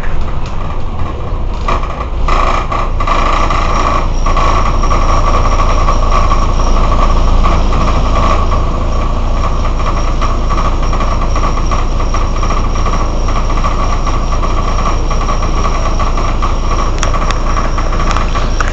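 Mercedes-Benz O 405 N city bus's rear-mounted engine idling steadily, a deep even rumble with a high whine laid over it that is loudest in the first half.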